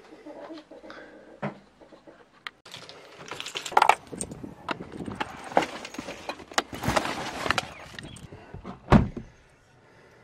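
Rustling and clattering of FPV flying gear and plastic bags being handled and packed, then one heavy thump near the end.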